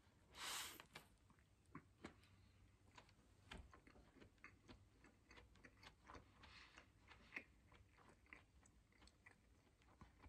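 A person biting into a Smokehouse Whopper burger, with a short noisy burst about half a second in, then faint chewing with scattered small mouth clicks.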